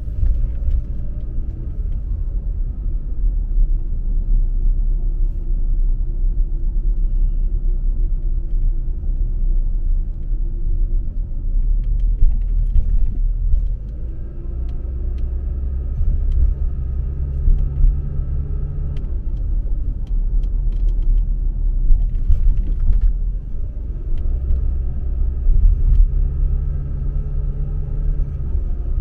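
Car driving: a steady low rumble of engine and road noise, with the engine's note rising and settling a few times as it picks up speed.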